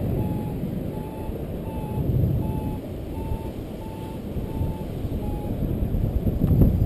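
Paragliding variometer beeping: about eight short, evenly spaced beeps a little under a second apart, their pitch rising slightly and then dropping near the end. The beeping is the vario signalling that the glider is climbing in lift. Wind rumbles over the microphone underneath and swells louder near the end.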